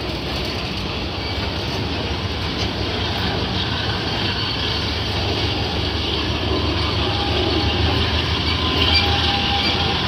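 Passenger coaches of an express train rolling past at close range: a steady rumble of steel wheels on the rails, growing slightly louder toward the end.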